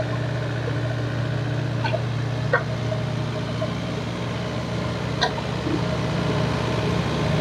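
A large engine running steadily at constant speed, with a few short knocks at about two seconds in and again around five seconds.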